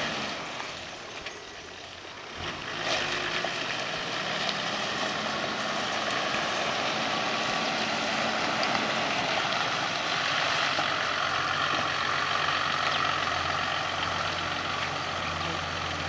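A four-wheel drive's engine running steadily at low revs as the vehicle creeps forward and wades into a shallow rocky river, with the wash of water around the wheels. The sound comes up about two and a half seconds in and then holds steady.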